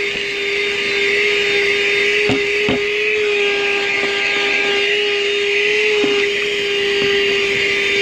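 Armor All 12-volt handheld car vacuum running steadily: a constant motor whine over a strong rush of air, with a few sharp clicks a couple of seconds in. It is plugged into the lighter socket with the engine running, so it runs on the car's 14.5-volt charging supply.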